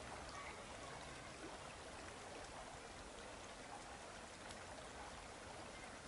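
Faint, steady outdoor background noise at the water's edge: an even hiss with a few faint ticks and no distinct events.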